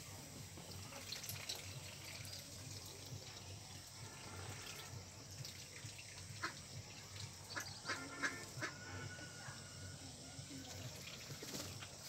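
Domestic ducks in a flock giving a few short quacks, most of them a little past the middle, over a steady faint hiss.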